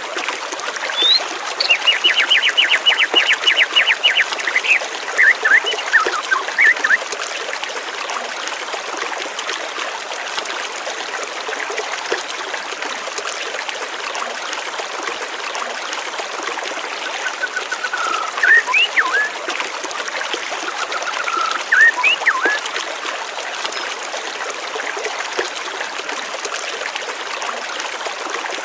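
Steady rush of flowing water, with a songbird singing over it: a fast trill followed by a few chirps in the first several seconds, and a few more chirps later on.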